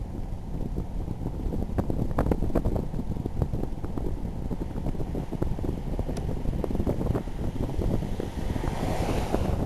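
Wind buffeting the camera's microphone: a continuous low rumble broken by irregular thumps, with a hissing gust swelling near the end.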